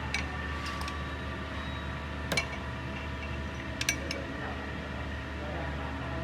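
A few light metallic clinks of tools or parts, one about two seconds in and two close together about four seconds in, over a steady low workshop hum.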